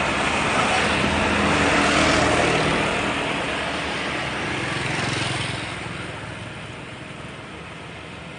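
Road vehicle passing, its engine hum and road noise swelling over the first two seconds and then slowly fading away.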